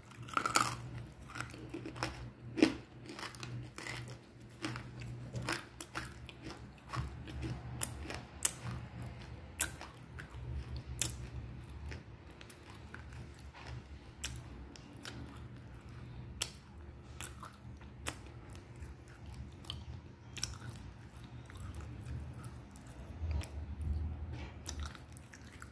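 A person biting into a crunchy chunk of dark grey clay close to the microphone, then chewing it with many sharp, crackling crunches scattered throughout. The crunches are loudest about two and a half seconds in.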